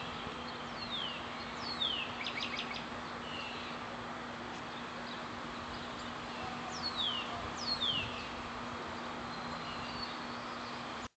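Birds calling: four clear whistles sliding downward in two pairs, one pair about a second in and one about seven seconds in, with a quick run of short notes around two seconds in. Beneath them runs a steady low hum.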